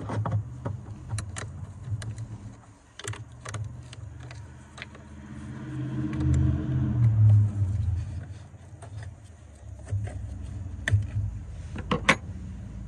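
Scattered metal clicks and clinks from a wrench working the 10 mm nut on a car battery's positive terminal clamp and the cable coming off the post, with a quick cluster of clicks near the end. A low rumble underneath swells about six seconds in.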